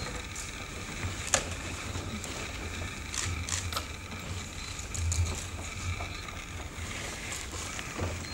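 A knife cutting into a large bluefin tuna on a cutting board: scattered short knocks and clicks, the sharpest about a second and a half in, over a low hum.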